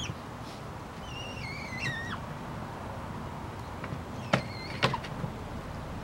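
Tiercel albidus goshawk giving a high, wavering whine that falls in pitch, about a second in. Two sharp knocks follow a little past the middle.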